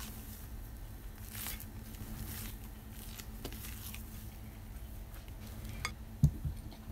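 Spatula folding airy chocolate cake batter in a glass bowl: soft, squishy swishing strokes. Near the end the glass bowl is set down on the table with a dull thump, followed by a smaller knock.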